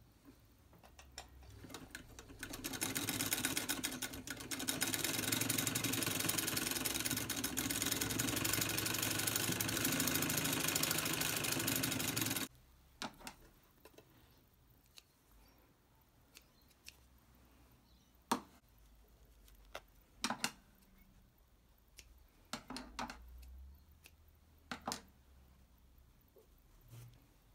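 Vintage Singer 66K sewing machine stitching back and forth through denim to darn it: a steady run of about ten seconds that builds up after a few light clicks and stops suddenly. A handful of separate clicks and knocks follow.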